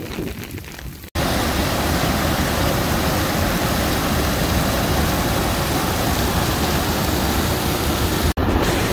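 A wadi in spate after heavy rain: muddy floodwater pours over a concrete weir and rushes through foaming rapids with a loud, steady rush. This begins abruptly about a second in, after a short stretch of wind on the microphone, and is broken by a momentary dropout near the end.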